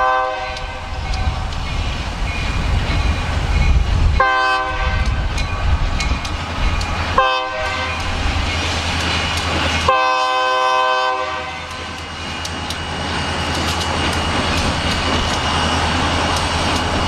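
Air horn of a lead EMD SD40-2 diesel locomotive sounding the grade-crossing signal: four blasts, the third short and the last held about two seconds. Between and after them, the locomotives' diesel engines and the freight train rumble past.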